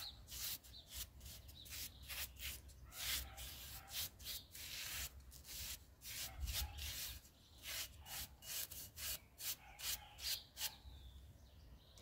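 Paintbrush bristles brushing waterproofing resin onto an unglazed terracotta pot: a quick run of short, soft scratchy strokes over the clay, stopping near the end.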